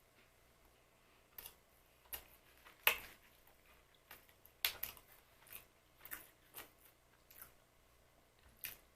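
Crisp crunching from biting and chewing glazed puff-pastry biscuits (sfogliatine glassate): about a dozen separate short crunches at an uneven pace, the loudest about three seconds in.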